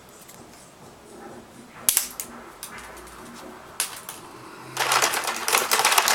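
Plastic zip ties clicking: a few sharp separate clicks, then from about five seconds in a fast, dense run of clicking like a tie's teeth being ratcheted through its locking head.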